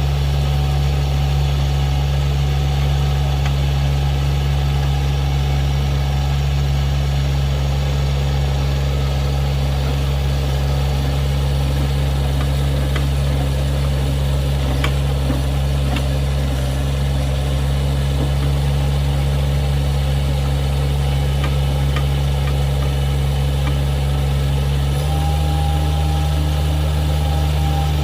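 An engine running steadily at constant speed, its note stepping slightly higher near the end.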